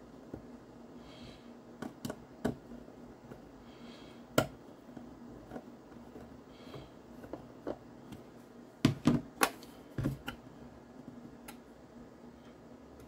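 Small case screws being turned in by hand with a screwdriver on a Kantronics KPC3+ TNC: scattered light clicks and ticks of metal on metal, with a cluster of louder knocks about nine to ten seconds in as the case is handled.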